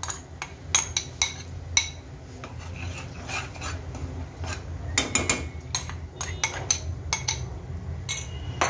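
A spoon scraping and knocking ginger paste out of a glass bowl into a non-stick kadhai, a quick run of sharp clinks, then scraping the paste around the pan, with more clinks about five seconds in and near the end.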